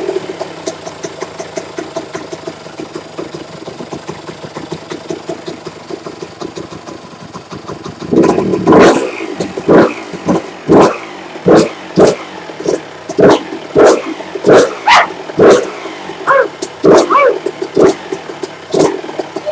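Kawasaki KX125 two-stroke single-cylinder engine running on its first start after a rebuild, a steady idle with fast, even firing ticks. From about eight seconds in, loud sharp bursts come about one and a half times a second over the running engine.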